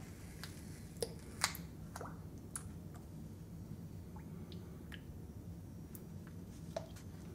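Light, irregular clicks and taps of small objects handled on a wooden floor, about ten in all, a few with a short drip-like drop in pitch, over a steady low hum.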